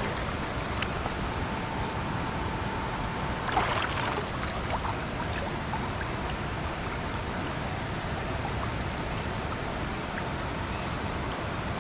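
Shallow river current running steadily over a rocky bed, with a brief splash about three and a half seconds in as a hand pulls a stone up out of the water.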